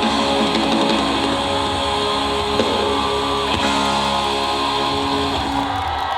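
Live band playing the instrumental ending of a pop song, led by guitar, with the held chord cutting off near the end.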